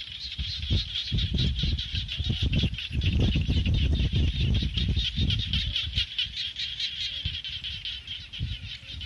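A steady, high, rapidly pulsing chorus of small creatures calling in a rice paddy, with irregular low gusts of wind rumble on the microphone.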